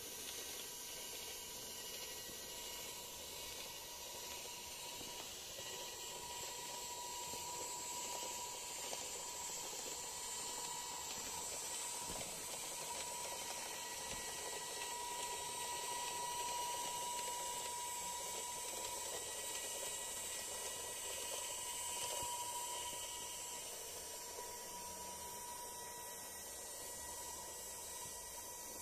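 Small battery-powered electric motor of a homemade LEGO monorail engine running steadily, a faint whine over a hiss that grows a little louder in the middle.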